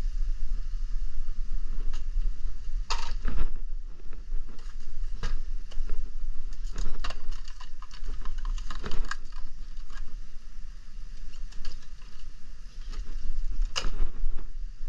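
Handling noise: scattered clicks, knocks and rustles, loudest about three seconds in and again near the end, over a steady low rumble.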